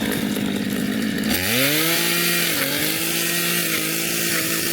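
Chainsaw engine revving up about a second in and then running steadily at high speed, its pitch dipping briefly once.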